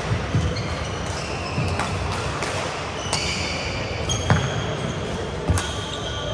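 Badminton rally: racket strikes on the shuttlecock as sharp cracks about once a second, the loudest about two-thirds of the way through. Court shoes squeak in short high chirps on the floor between the strikes.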